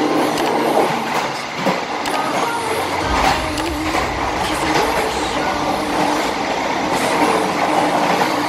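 Passenger train running on the rails, heard from its rear cab: a steady rolling noise with scattered clicks from the wheels on the track. A low rumble comes in about three seconds in.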